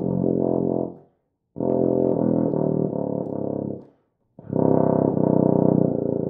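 Euphonium played in the pedal register: low, sustained notes stepping down from pedal B flat toward double pedal B flat. They come in three blown phrases with short breaks for breath, the last held for over three seconds.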